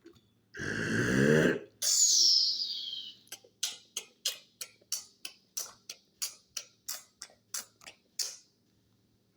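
Vocal sound effects made by mouth. A short, throaty, voiced sound whose pitch wobbles comes first, then a falling hiss. After that come about sixteen short, sharp hissing bursts at roughly three a second, which stop about a second before the end.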